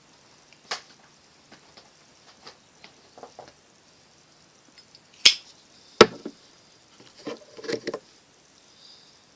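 Scattered small clicks and taps from handling a tobacco pipe, with two sharp clicks about five and six seconds in and a short run of soft knocks near the end.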